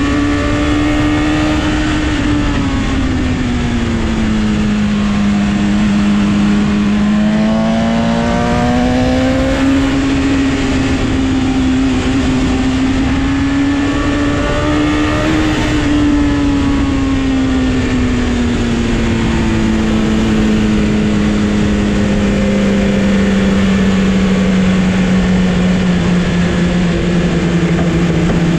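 Sport motorcycle engine heard from on board, held at high revs, its pitch falling, climbing and falling again as the rider works the throttle through the curves, with wind rushing past. Near the end the revs ease down and stay lower.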